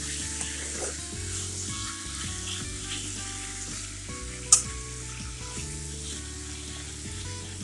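Chopped tomatoes and vegetables sizzling in hot oil in an iron kadai, stirred with a steel spatula. There is one sharp clack of the spatula against the pan about four and a half seconds in.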